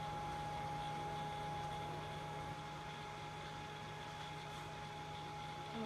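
Steady whir of a small electric blower fan with a thin, constant whine over it: the battery-powered fan that keeps an inflatable T. rex costume blown up.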